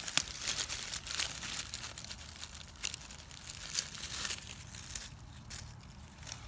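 Dry leaf litter and twigs crackling and rustling in short, irregular bursts as a hand reaches in and picks a morel mushroom, quieter near the end.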